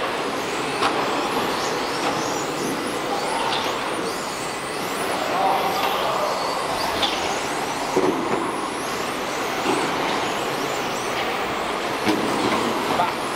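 Several small electric radio-controlled race cars running laps on a carpet track, their motors whining and rising and falling in pitch as they speed up and slow down through the corners.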